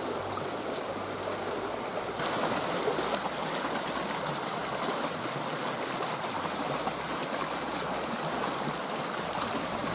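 Swollen, rising creek rushing and splashing over rocks, stumps and branches in a steady wash of water noise, a little louder from about two seconds in.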